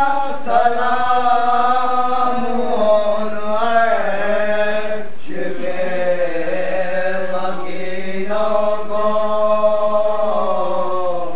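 Group of men chanting an Urdu salam, a Shia mourning elegy, together and unaccompanied, led by an older man's voice through a microphone. The lines are long and drawn out, with a short break for breath about five seconds in.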